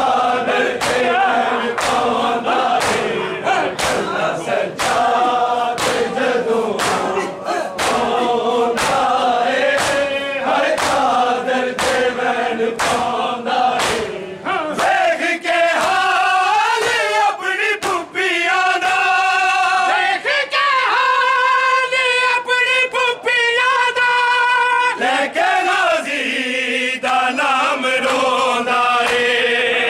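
A crowd of men chanting a Shia noha, a mourning lament, in unison. Through the first half it runs over a steady rhythm of sharp hand slaps on bare chests (matam), about two a second. From about halfway, long drawn-out sung lines take over.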